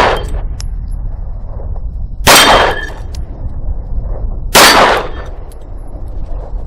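Three 9mm pistol shots from a CZ P-10 C, about two seconds apart, the first right at the start, each a sharp crack with a short echo. Wind rumbles on the microphone throughout.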